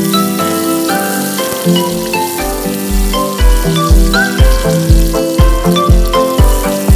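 Background music with a steady beat that comes in about two seconds in, about two beats a second, laid over chopped onion and garlic sizzling in hot oil in a wok.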